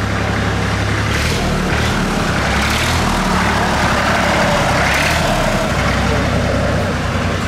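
A tractor engine running steadily, its engine note shifting pitch about a second in and again near the end.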